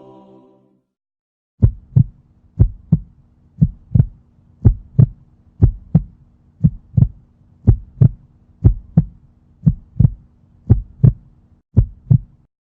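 Heartbeat sound effect: paired low lub-dub thumps at about one beat a second over a faint steady hum, starting after a short silence.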